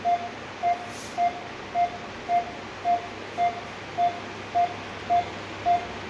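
Bedside patient monitor beeping in time with the patient's pulse: short single-pitch beeps a little under twice a second, matching the heart rate of about 103 beats a minute on its display.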